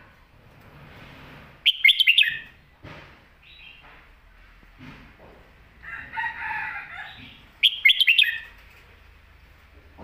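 Caged red-whiskered bulbul singing: two loud, quick phrases of several sharp notes, the first about two seconds in and the second about six seconds later, with softer warbling just before the second.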